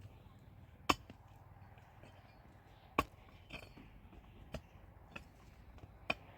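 Five sharp knocks at irregular intervals; the loudest come about a second in and about three seconds in.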